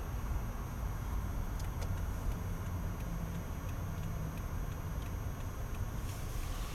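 Steady low rumble of a car's engine and tyres on a snow-covered road, heard from inside the cabin while driving, with a brief hiss near the end.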